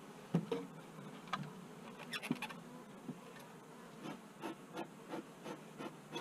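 Honeybees buzzing around an open Kenyan top-bar hive, with a string of short, light wooden knocks and clicks as the top bars are lifted and moved, the knocks coming quicker in the second half.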